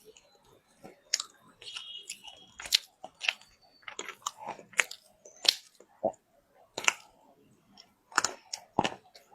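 Wet loess clay being bitten and chewed close to the microphone: irregular crisp crunches, about a dozen, with short pauses between them.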